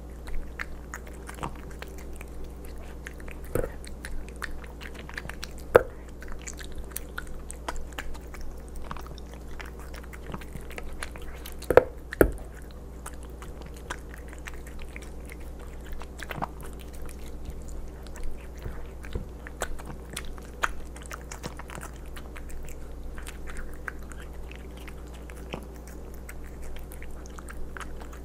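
A Bengal cat eating wet cat food in gravy from a stainless steel bowl, close to the microphone: a run of small, irregular chewing clicks, with a few louder clicks, two of them close together about halfway through.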